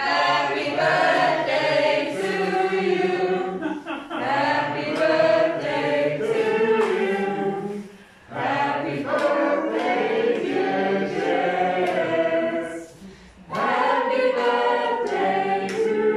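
A group of people singing together without accompaniment, in phrases broken by short pauses about four, eight and thirteen seconds in.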